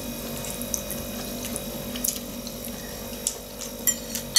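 Quiet wet eating sounds and small scattered clicks from someone eating oily glass noodles (funchoza), over a steady room hum. A fork clicks sharply against the plate at the very end.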